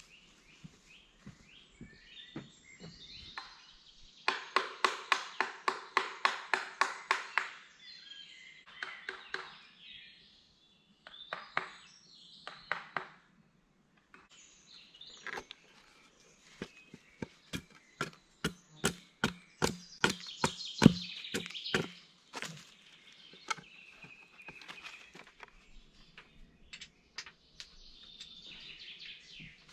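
Woodland sounds: birds calling, with a fast, even trill of repeated notes about four seconds in. Later comes a run of sharp knocks or clicks, the loudest a little past the middle.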